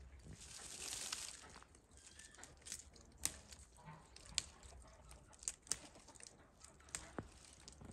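Leaves being picked by hand from a snow-covered shrub: a short rustle of branches about a second in, then a string of sharp little snaps as stems are broken off, about six over four seconds.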